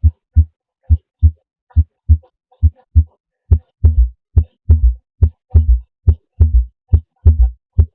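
Recorded heart sounds. At first a regular lub-dub at about 70 beats a minute, then from about three and a half seconds in the beats grow louder and each cycle carries an extra low thud: a gallop rhythm, the sign of an added diastolic (third or fourth) heart sound.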